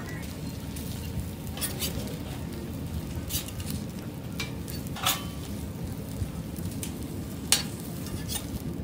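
Egg sheet sizzling on a hot flat-top griddle, with a metal spatula scraping and tapping against the griddle a handful of times as the egg is folded around the toast; the sharpest tap comes near the end.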